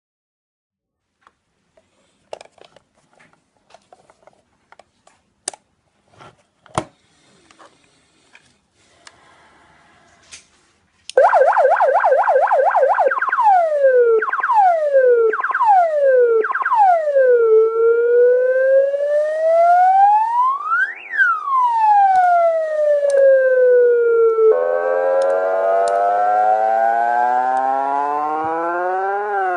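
Homemade electronic siren driver sounding through a 100-watt horn speaker, stepping through its tones. After about eleven seconds of scattered faint clicks it starts loud with a fast warble. Then come several quick falling swoops, then one slow wail that falls, rises and falls again, and near the end a lower, buzzier wail rising.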